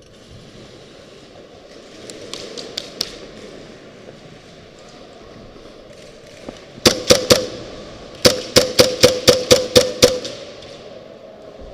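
Airsoft gun firing close by: three quick shots, then a rapid string of about nine shots. Fainter shots from farther off are heard a few seconds earlier.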